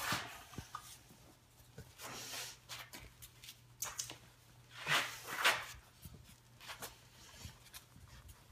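Eight-week-old puppies scuffling and playing on a tile floor: scattered scratchy rustles and paw scuffles, the loudest pair about five seconds in, over a faint steady low hum.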